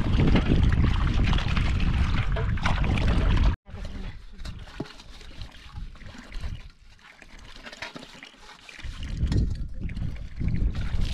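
Water splashing and trickling as large metal basins are rinsed and scrubbed by hand, with a few light knocks of the metal. The sound cuts out abruptly about three and a half seconds in, then comes back quieter and swells again near the end.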